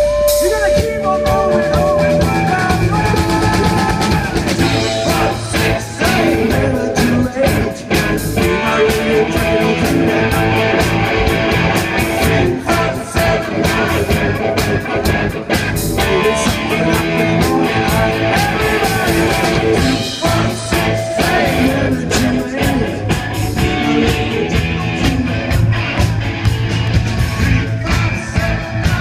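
Live rock band playing through a stage PA: electric guitars, bass guitar and drum kit, with a male lead singer.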